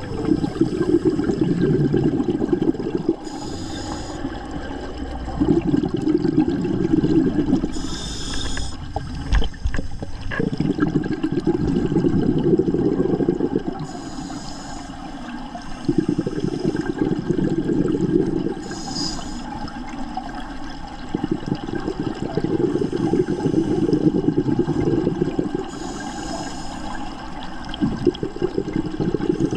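Scuba diver breathing through a regulator: a short hiss on each inhale, then a long burst of bubbles on each exhale, about five breaths in slow rhythm.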